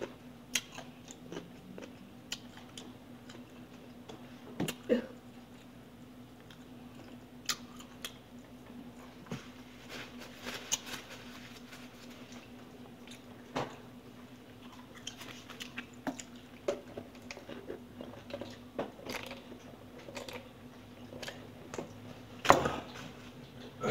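A person eating close to the microphone: irregular bites, crunches and chewing, with a few louder bites among them.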